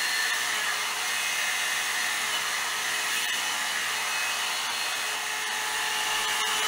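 Hot-air dryer brush running steadily, blowing air through wet hair as it is drawn through, with a faint steady whine over the rush of air.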